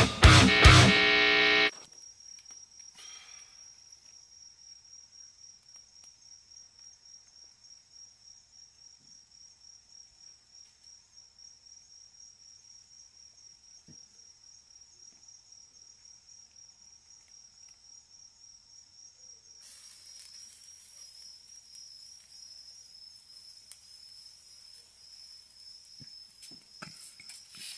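Loud music cuts off abruptly about two seconds in. After that, insects chirp faintly in a high, even trill that pulses several times a second, and a faint hiss joins about twenty seconds in.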